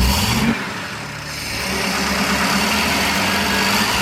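Engine of a vintage Ford F100 truck with Holley Sniper throttle-body fuel injection running after a dead injector was replaced. Its pitch rises briefly about half a second in, then the sound dips and builds back up.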